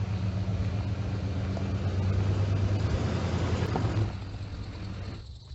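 A motor running with a steady low hum and a rushing noise, loudest for a couple of seconds midway, then easing off and stopping near the end.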